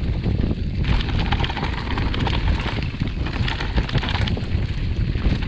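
Wind rushing over an action camera's microphone while riding a mountain bike downhill, with the tyres rolling and the bike rattling over a rocky, leaf-strewn trail.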